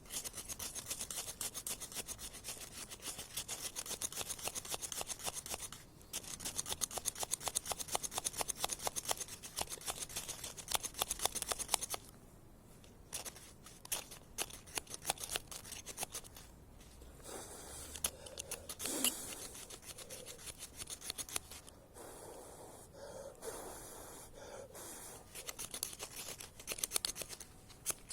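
Knife spine scraped rapidly and repeatedly along a ferrocerium fire-starter rod to throw sparks, then slower, scattered scrapes for the rest of the time.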